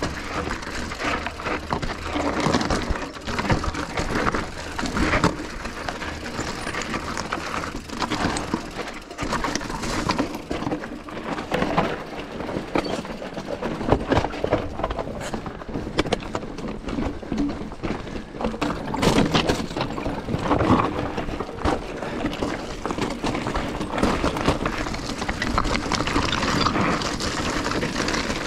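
Mountain bike descending a rough, rocky trail: tyres grinding over rock and the bike rattling, with frequent sharp knocks throughout.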